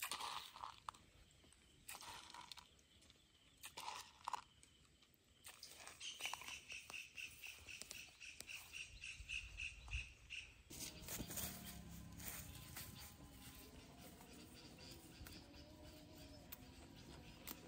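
A bird chirping in a quick, even series for about four seconds, over faint outdoor ambience with scattered soft clicks and rustles.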